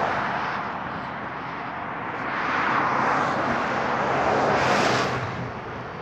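Road traffic: a vehicle passing on the road, its tyre and engine noise swelling up and fading, loudest a little before the end.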